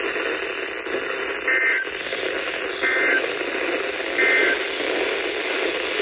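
NOAA weather radio receiver's speaker giving three short two-tone digital data bursts about 1.3 seconds apart over steady radio hiss: the SAME end-of-message code that closes the weekly test broadcast.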